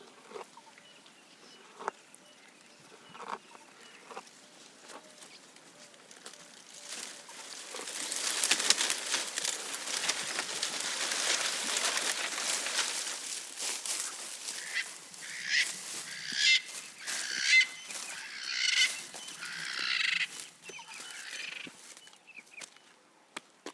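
Leaves and twigs rustling and crackling as a giraffe strips a branch while feeding. A run of harsh bird calls follows about two-thirds of the way through.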